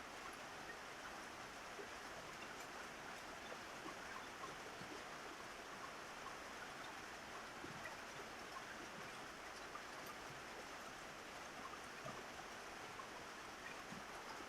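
Steady rain falling on a roof: a dense, even hiss with scattered individual drop ticks.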